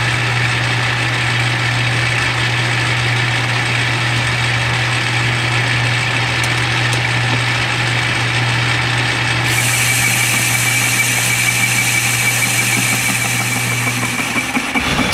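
Metal lathe running while a tool bit turns a rough casting down to diameter: a steady motor hum under the noise of the cut, with a higher steady whine joining about ten seconds in. The lathe winds down near the end.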